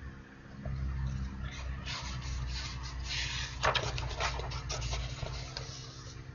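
Paper pages of a large paperback colouring book being turned and handled: soft rustling and rubbing of the sheets, with a few sharp paper clicks a little over halfway through, over a low rumble.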